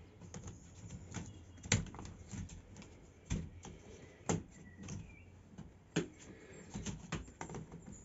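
Irregular clicking and knocking of hard plastic as Froli spring plates are handled and fitted onto the white plastic connector crosses of a bed support grid, with a handful of sharper knocks among the lighter clicks.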